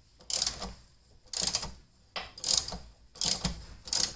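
Hand ratchet wrench with a 16 mm socket clicking in repeated back-and-forth strokes, about one a second, as it loosens a Jeep TJ body mount bolt.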